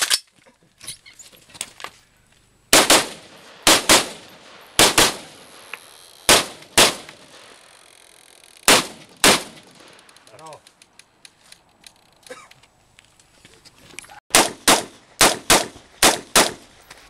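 Rifle shots fired during a practical rifle stage: about ten shots in irregular pairs, mostly a fraction of a second apart, spread over about ten seconds. After a pause of several seconds comes a faster string of about seven shots, around three a second, near the end.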